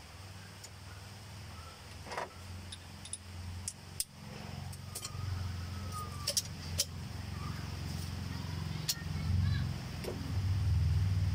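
Steady low rumble of a vehicle engine running nearby, growing louder towards the end, with scattered sharp metallic clicks from a socket and extension being set on the cylinder head bolts.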